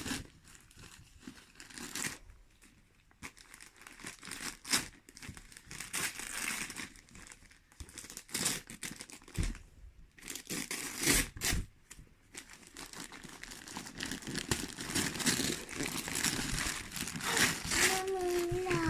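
Paper gift wrapping being torn and crumpled as a present is unwrapped: irregular rips and crinkling rustles, some louder than others.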